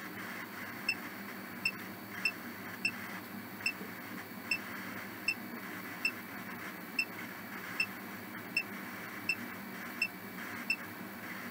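Short, high electronic beeps from a ghost-hunting phone app, a little more than one a second at an uneven pace, over a steady hiss.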